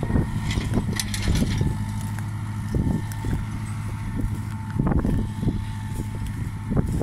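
Fortschritt ZT tractor's diesel engine running steadily under load while pulling a stubble cultivator, a steady low drone heard from a distance. Irregular low thumps and rustling close to the microphone sound over it.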